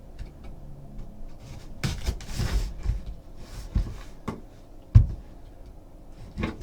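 Handling noises of a trading-card hobby box being opened: light clicks and rustling, a brief scratchy noise about two seconds in, and a sharp knock about five seconds in.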